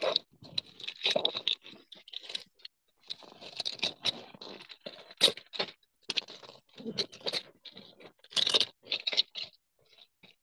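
Irregular scratching and clicking noises on a microphone, short scattered bursts with no steady rhythm, typical of handling noise and keyboard typing.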